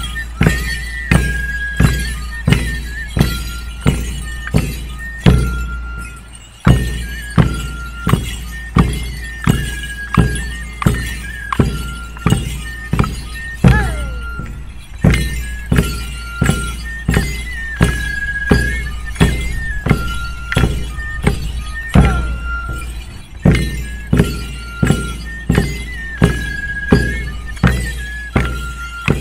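Andean dance music: large hand-held drums struck in a steady beat, about three strokes every two seconds, under a high melody of held notes.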